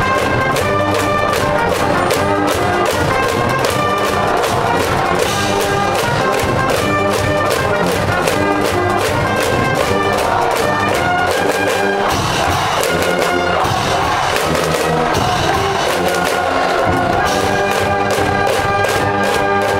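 A school brass band in the cheering stand plays a baseball fight song, trumpets and trombones carrying the melody over a steady drum beat.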